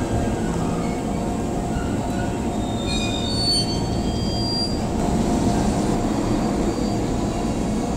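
Shinano Railway SR1 series electric train standing at the platform with its onboard equipment running: a steady hum and rush. A few faint high squeals come about three seconds in.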